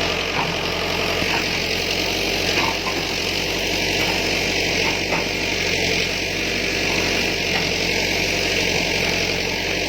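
Backhoe's diesel engine running steadily.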